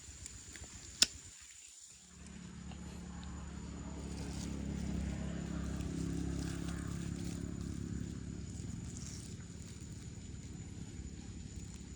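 A single sharp click about a second in, then a motor's low hum that starts about two seconds in, swells to its loudest around the middle and slowly eases off. A thin, steady high tone runs underneath.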